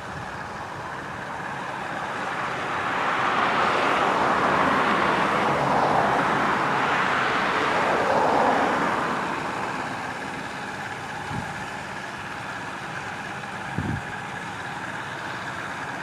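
Massey Ferguson 640 combine harvester running as it cuts wheat, a steady mechanical drone that swells as the machine draws nearest and eases off again.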